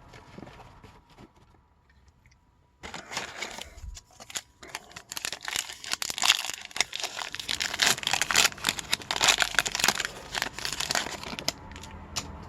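Hockey card pack wrapper being torn open and crinkled by hand. A dense run of crackling starts about three seconds in and fades near the end.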